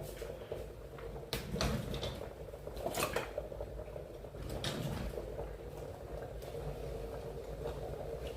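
Kitchen handling noises: a few separate knocks and clatters, like pots, utensils or a cupboard, over a steady low hum.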